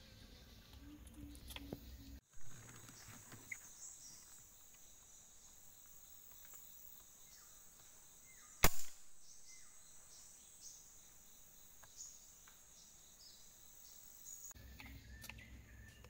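A single sharp air rifle shot about two-thirds of the way through, fired at a bird perched in the canopy, over a faint steady high insect hum.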